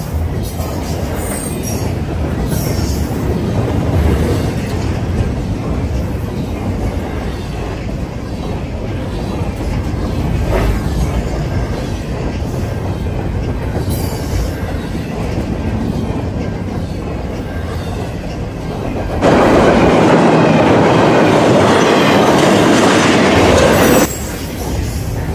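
Freight train of double-stack intermodal cars rolling past close by: a steady rumble of steel wheels on the rails, with clacking and some wheel squeal. About nineteen seconds in, a louder rushing noise sets in suddenly, holds for about five seconds, then cuts off.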